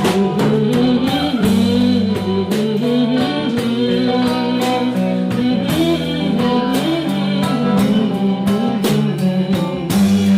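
A live band playing a song with guitar and drums, with a steady beat.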